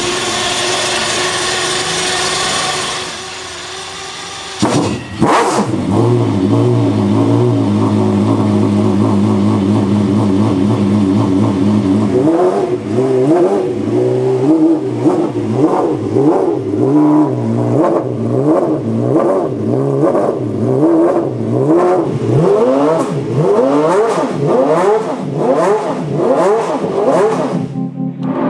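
Lamborghini Murcielago R-GT race car's unsilenced V12 engine fires about five seconds in and idles steadily. From about twelve seconds it is blipped up and down roughly once a second.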